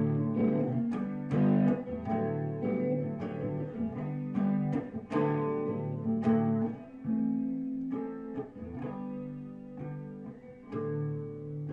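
Solo guitar picking chords with no singing. The notes come every half second or so at first, then thin out and ring longer in the second half.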